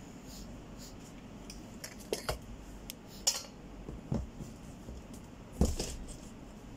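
A handful of short knocks and rustles as things are handled and packed into a cardboard carton, loudest about three seconds in and again toward the end.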